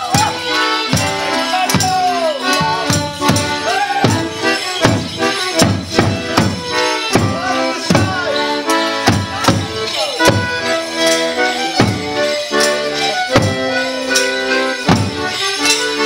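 Border morris band playing a folk dance tune: bass drums beating strongly and steadily under a fiddle and other melody instruments.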